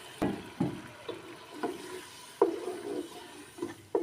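A spoon stirring in a cooking pan, knocking against the pan about six times with a short ring after each knock, over a faint sizzle.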